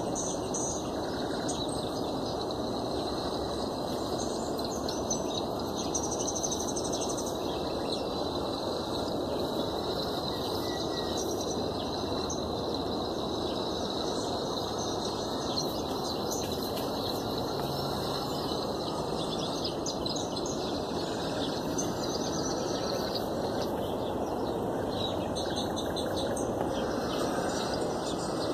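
Small songbirds chirping and singing in scattered short calls over a steady, louder background noise of low rumble and hiss.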